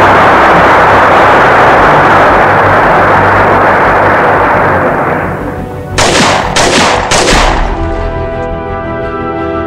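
A loud, dense rattle of gunfire-like noise for about five seconds, then three sharp bangs in quick succession, then music with held tones.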